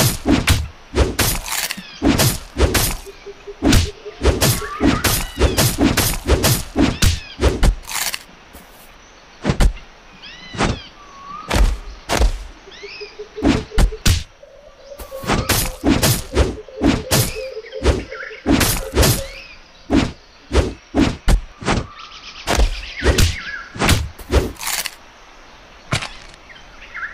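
Cartoon fight sound effects: a rapid string of hitting and thudding impacts mixed with cat-like yowls and snarls. The hits thin out for a few seconds about a third of the way in, then come thick again.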